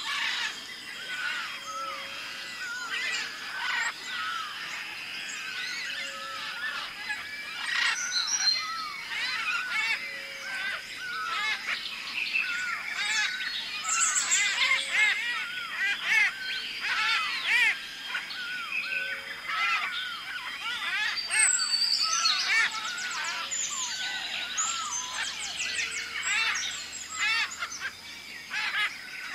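A dense chorus of many birds chirping and calling, with quick rising-and-falling chirps overlapping continuously over a steady high-pitched tone.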